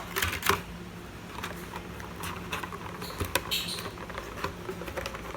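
Scattered light clicks and taps of small plastic parts and packaging being handled, a Beyblade top and its box, over a faint steady hum.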